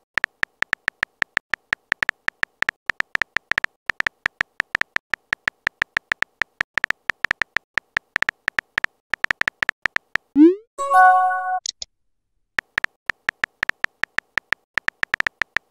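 Keyboard tap clicks from a texting-chat animation, several a second, as a message is typed out letter by letter. About ten seconds in, a short rising swoosh and a brief chime of several tones mark a message being sent; after a short pause the tapping starts again.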